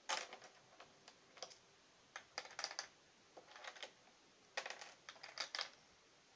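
Faint clusters of quick clicks and taps as a hand moves small play-money bundles about on a plastic toy answer board.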